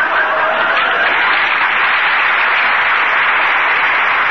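Studio audience applauding steadily at the end of a scene of a live radio comedy broadcast. A voice trails off about a second in.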